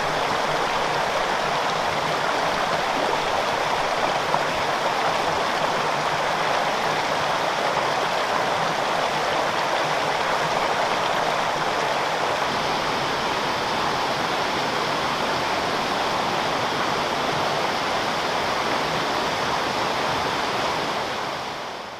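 Waterfall and mountain stream rushing steadily, a dense even roar of falling and running water that fades out near the end.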